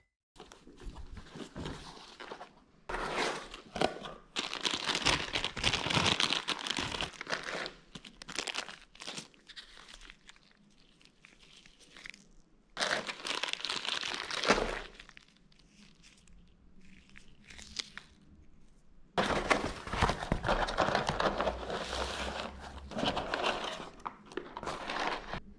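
Packaging being unwrapped by hand: plastic, foam wrap and paper crinkling and rustling in three long bursts, with quieter handling between.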